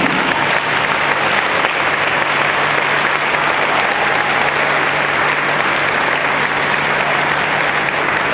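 Audience applauding steadily in a hall, with a steady low hum underneath.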